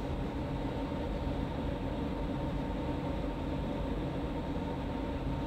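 Steady room background hum with a faint hiss, unchanging, with no distinct events.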